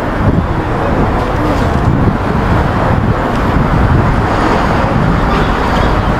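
City street traffic noise: a steady rumble of cars.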